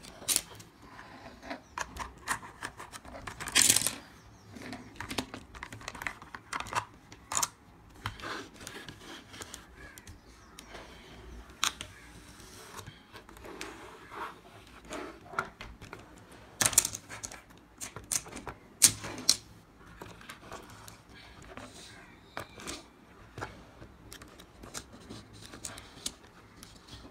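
Hard plastic toy pieces clicking and clacking as they are handled and knocked down on a table: irregular sharp clicks, the loudest a few seconds in and twice more past the middle.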